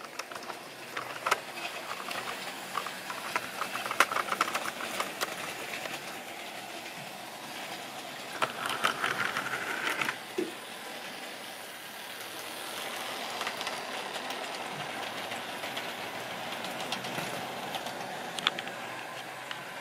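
OO gauge model train running on sectional track: a steady whirring from the locomotive's electric motor and wheels, with scattered sharp clicks as the wheels cross rail joints. There is a louder clattering stretch about eight seconds in, and a few isolated clicks later.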